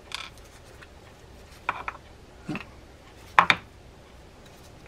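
Small parts of a Shimano Sedona 4000R spinning reel clicking and knocking as the anti-reverse collar and reel body are handled and set down on a wooden bench: a few short clicks, one duller knock about two and a half seconds in, and the loudest, a double click, about three and a half seconds in.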